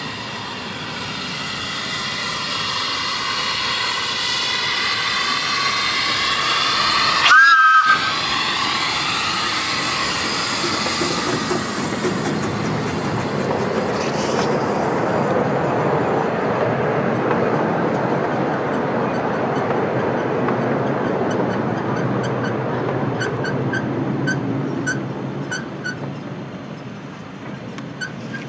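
Exmoor-built 0-4-2T narrow-gauge steam locomotive approaching and passing with its passenger train. It gives one short whistle blast about seven seconds in, the loudest moment; then the carriages rumble past over the rails and the sound fades near the end.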